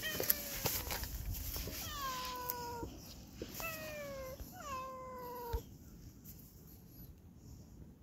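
A cat meowing four times, each meow drawn out for most of a second and falling in pitch; the calls stop about two-thirds of the way through.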